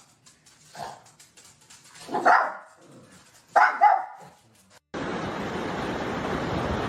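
A dog barking in short yips, three times, the last a quick double bark. About five seconds in it cuts suddenly to a steady rushing noise.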